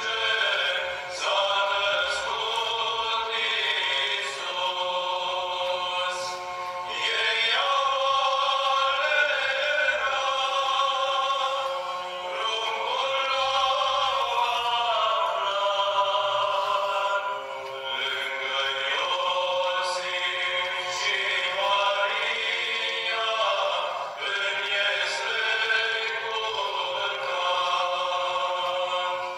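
Choir singing slow, sustained chords in long phrases, with brief breaks between phrases.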